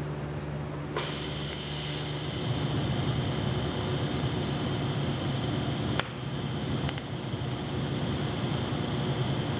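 Welder arcing, building weld up on the stub of a broken exhaust manifold bolt in an LS cylinder head. A steady crackle and hiss starts about a second in, with a couple of sharp clicks later on, over a low steady hum.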